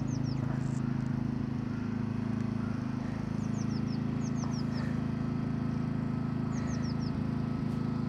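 Birds chirping in short runs of four or five quick, high, falling notes, repeated several times over a steady low hum.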